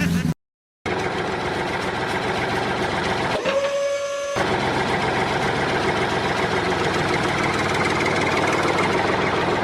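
Steady mechanical running noise, with a steady single-pitched tone sounding for about a second a few seconds in.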